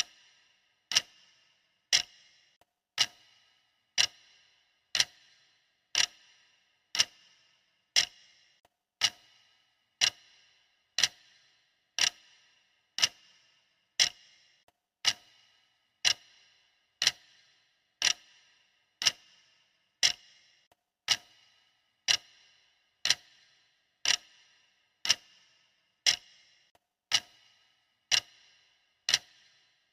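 Clock ticking steadily, one sharp tick each second, each tick ringing briefly before it dies away.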